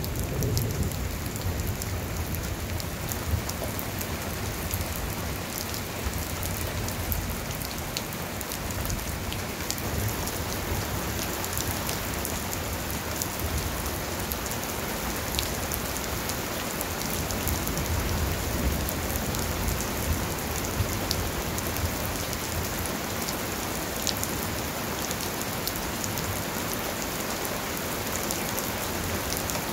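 Heavy rain from a sudden shower pouring down steadily: a dense, even hiss with many sharp ticks of individual drops striking.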